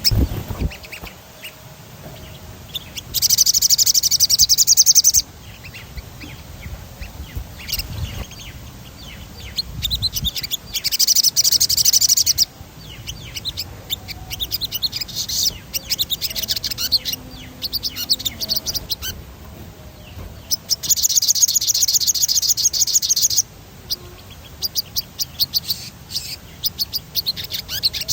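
Sogon songbird singing: three long, high, rapid rolling trills of about two seconds each, separated by scattered short chirps.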